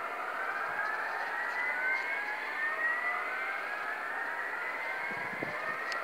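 Hörmann ECN electronic sirens sounding the alarm tone of the refinery's weekly siren test: a wailing tone whose pitch rises slowly over a couple of seconds and starts again, with several sweeps overlapping.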